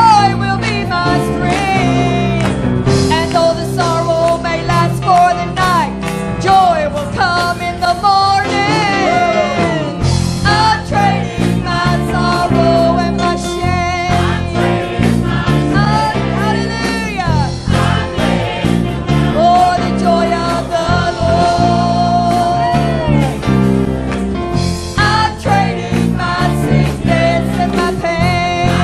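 Live gospel music with singing over guitar and band accompaniment.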